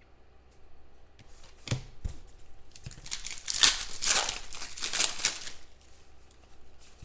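Foil wrapper of a Panini Contenders football card pack being torn open and crinkled by hand, after a couple of soft knocks.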